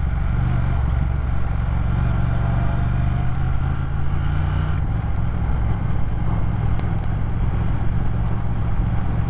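Motorcycle engine running at road speed, a steady low rumble; the engine note changes about five seconds in.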